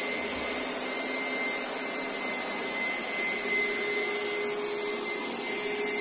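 Upright carpet cleaner running steadily on a rinse pass over a rug: a constant motor and suction whine with a steady high tone.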